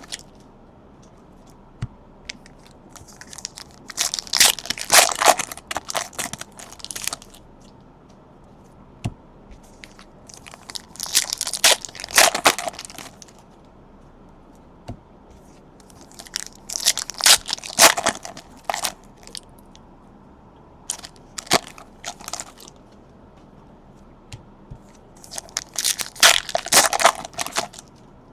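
Trading card packs being torn open and their foil wrappers crinkled and crumpled, in five bursts a few seconds apart, with quieter card handling and small clicks between them.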